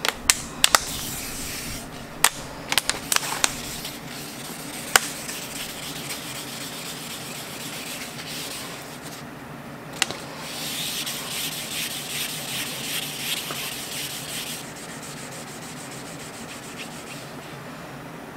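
Abrasive pad scrubbing a wet steel knife blade by hand, a run of back-and-forth rasping strokes in the middle of the clip. A few sharp clicks come in the first seconds, over a steady low hum.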